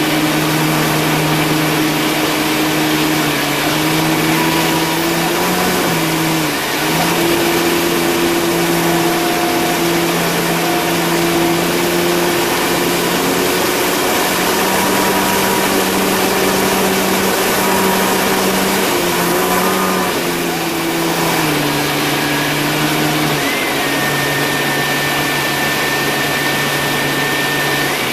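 Piper Pawnee's piston engine and propeller droning steadily in flight, heard from inside the cabin, over a dense rush of noise. Its pitch shifts slightly up and down a few times.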